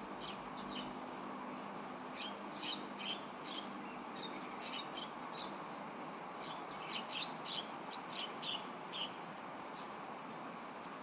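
Short, sharp chirping calls, often two or three in quick succession, over a steady background hiss; they stop about nine seconds in.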